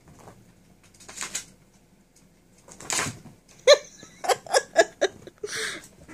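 A person laughing: breathy exhales, then a run of about four short, high-pitched giggles in quick succession a little past the middle.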